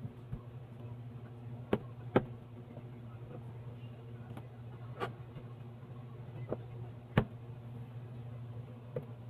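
Cardboard carton being handled and pried open by hand: a handful of sharp taps and knocks of hands and flaps against the box, over a steady low hum.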